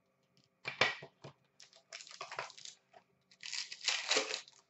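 A cardboard hockey card box being opened and its sealed card pack torn open: crinkling and tearing in three short bursts with pauses between.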